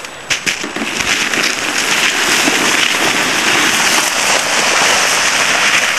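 Hard, icy crusted snow hissing and crackling under something sliding over it: a few sharp ticks at first, then a steady gritty hiss that builds about two seconds in and holds.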